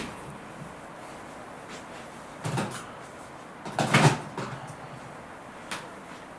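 Tools being handled and set down on a workbench: a short rattle about two and a half seconds in, a louder clatter around four seconds, and a light tap near the end.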